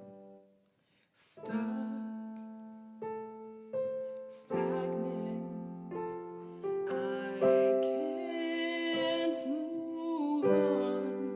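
Piano playing slow chords after a brief pause, each chord struck and left to ring. In the second half a female voice holds a wavering, wordless note over the piano.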